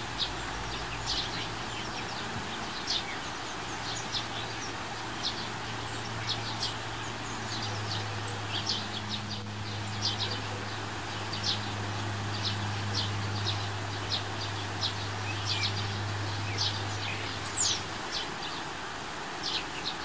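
River water flowing steadily, with many birds chirping in short, high calls throughout and one louder downward-sliding call near the end. A low steady hum sits underneath and stops about two seconds before the end.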